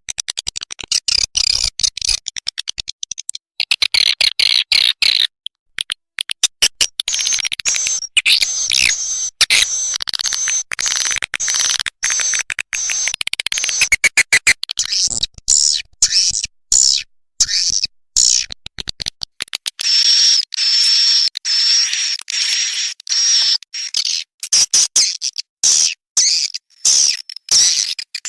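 Swiftlet call recording used as a lure for swiftlet houses: fast trains of clicks mixed with high, twittering chirps, going on without pause.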